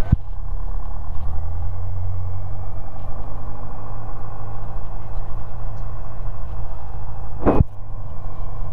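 Piper Cherokee's piston engine and propeller running steadily at low power, heard as a low drone through a Bose A20 aviation headset's microphone and intercom. A faint high whine slowly rises and then eases back, and there is a single sharp click about seven and a half seconds in.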